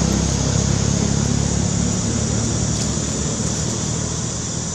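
A low, steady engine hum that slowly fades, with a steady high-pitched hiss behind it.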